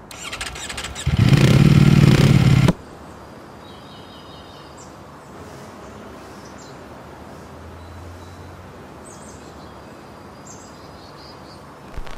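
A loud, low engine sound swells for about the first three seconds and cuts off suddenly. Then comes quiet outdoor ambience with small birds chirping now and then.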